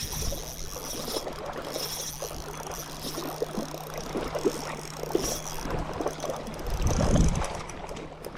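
Wind buffeting the microphone over water, with a steady low hum and scattered light ticks; a stronger gust about seven seconds in.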